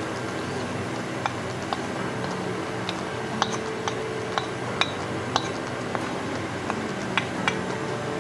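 A metal spoon tapping and scraping on a small ceramic saucer as spice powder is pushed off it, giving a dozen or so light, sharp clinks at an uneven pace.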